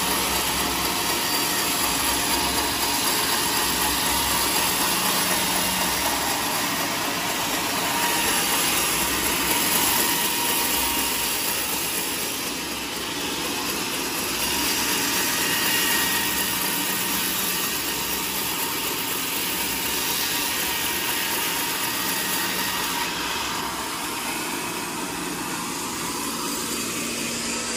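Sawmill band saw running steadily as it cuts lengthwise through a teak log.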